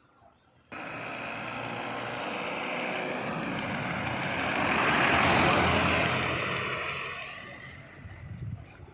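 A road vehicle passing on the highway: engine and tyre noise comes in abruptly under a second in, swells to a peak about five seconds in, then fades away.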